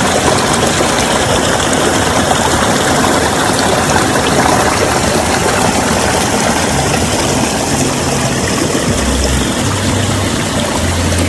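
Loud, steady rushing of water, an even roar of a fast river or falls.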